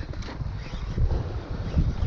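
Wind buffeting the microphone in uneven gusts, over the wash of the sea.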